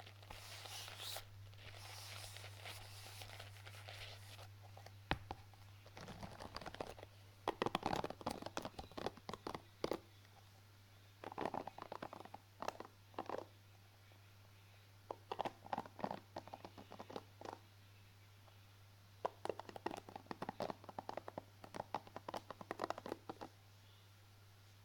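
Close-miked ASMR object handling: a soft rustle at first, then four groups of rapid scratching, clicking strokes a few seconds each, over a steady low hum.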